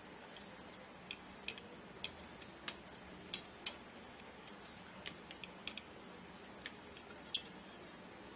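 Light plastic clicks and taps, irregular and about a dozen in all, as the opened TV remote's board and case parts are handled and fitted back together.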